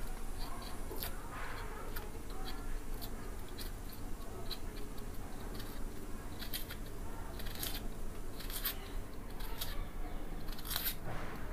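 Dry papery skin of a red onion crackling and tearing as it is peeled off with a knife, in small irregular clicks.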